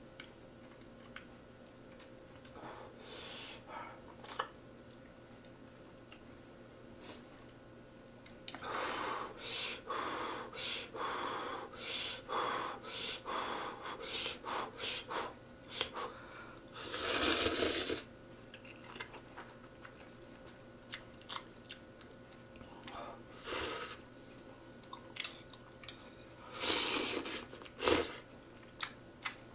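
A person slurping instant ramen noodles and broth: a string of short slurps, then one longer, louder slurp about halfway through, and more slurps near the end. Occasional clicks of metal chopsticks and a spoon against a stainless pot.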